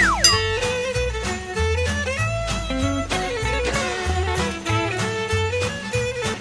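Background music: an upbeat instrumental tune with a bowed fiddle melody over a steady beat and bass, opening with a quick downward slide.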